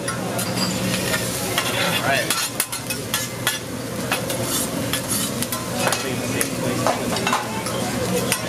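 Fried rice sizzling on a hot steel teppanyaki griddle, with a metal spatula clicking and scraping against the steel at irregular intervals.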